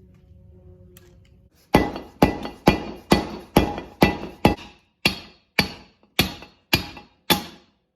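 About a dozen sharp metallic impacts with a brief ringing after each, starting about a second and a half in and coming roughly two a second, spacing slightly wider toward the end.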